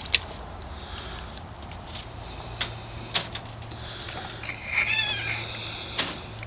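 Backyard hens calling, with a faint call about a second in and a louder, wavering call about five seconds in, among a few sharp ticks.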